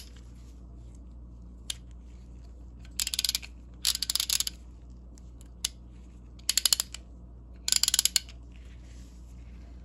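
Proto 5449-14BL half-inch drive spud ratchet with a coarse 24-tooth gear being worked back and forth, giving four short bursts of quick ratcheting clicks. Two single clicks fall between them.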